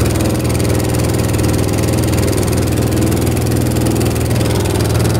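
Boat engine running steadily as the boat travels at sea, a constant low hum under a steady rush of wind and water.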